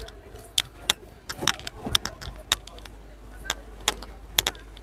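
Irregular sharp clicks and light knocks, two or three a second and unevenly spaced, over a steady low rumble.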